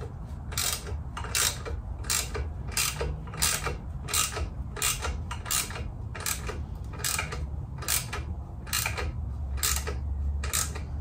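Hand ratchet wrench tightening exhaust manifold flange nuts: a short burst of pawl clicks on each back stroke, repeating evenly about once every 0.7 seconds, over a low steady hum.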